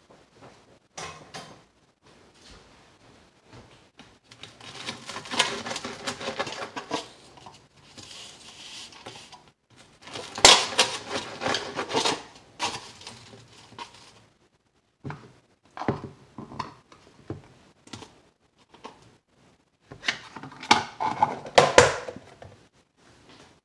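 Dishes and cutlery clattering: a knife cutting and tapping on a plate and kitchenware being handled. It comes in three bursts with quieter gaps and single clinks between them.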